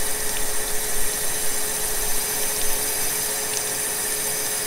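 Crankshaft grinder running, its grinding wheel cutting down the head of a stainless performance engine valve held in a steady rest. It makes a steady grinding hiss with constant whining tones.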